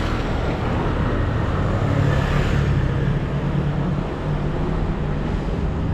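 Road traffic: a motor vehicle's engine and tyres passing close by, loudest about two to three seconds in.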